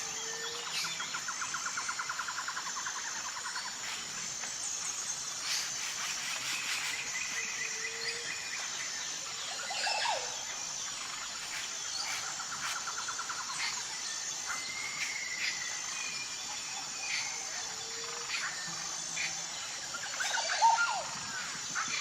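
Several wild birds chirping and trilling, with a louder call near the end, over a steady, evenly pulsed high-pitched chirping of insects.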